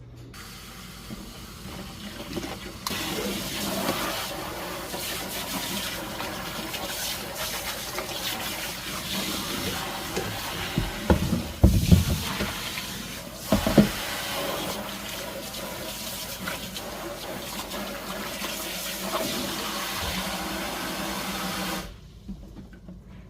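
Water running steadily into a sink during cleaning, with a few loud thumps of things being handled a little past the middle.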